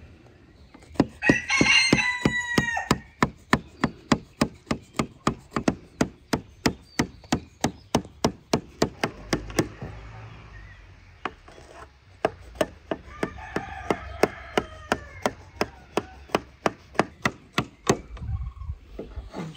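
A serrated knife cutting cake in a metal baking tray, its blade clicking against the tray in rapid even strokes a few times a second, with a short pause about halfway through. A rooster crows about a second in, and again more faintly later on.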